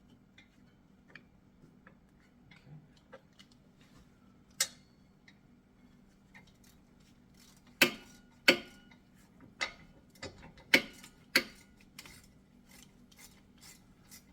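Sharp metallic clicks and taps from brake caliper hardware being handled and fitted. A handful of loud clicks come about eight to eleven seconds in, followed by a run of evenly spaced light ticks near the end.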